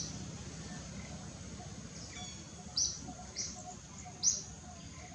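Birds chirping: a few short, high chirps, mostly in the second half, over steady low background noise.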